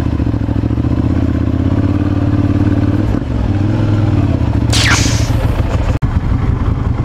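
Ducati Monster 796's air-cooled L-twin engine running steadily at low revs. A brief shrill sound falls in pitch about five seconds in, and the sound drops out for an instant about six seconds in.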